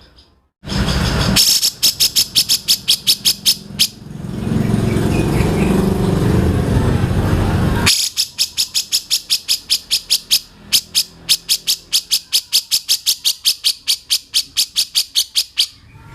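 A bird repeating one high, sharp call note very rapidly, about six a second, in two long runs. Between the runs there are a few seconds of steady low rumbling noise.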